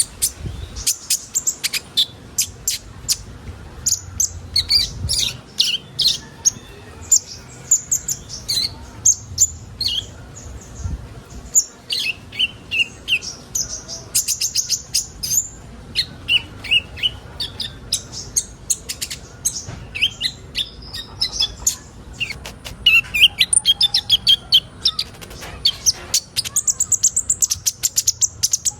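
Sunbirds (kolibri ninja) singing: a busy run of rapid, high, sharp chirps and short trills with hardly a pause.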